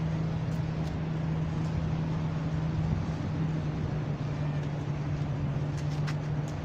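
A steady low mechanical hum, like an engine running at a distance, with a few faint clicks.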